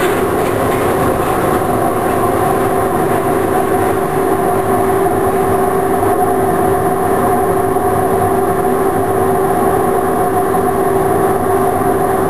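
Ventilation extraction fan running with a steady hum and a few steady whining tones.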